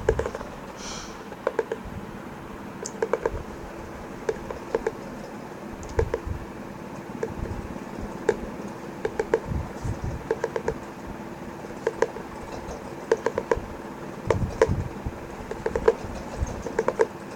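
Sharp tapping clicks on a hard object, single and in quick clusters of two to five, at an irregular pace.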